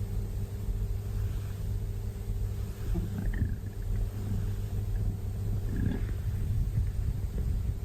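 A sleeping domestic cat snoring: two rough snoring breaths about three seconds apart, over a steady low hum.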